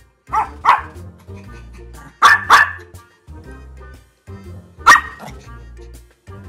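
Pomeranian dog barking in short, sharp barks: two near the start, two more about two seconds in, and a single loudest bark about five seconds in, over background music.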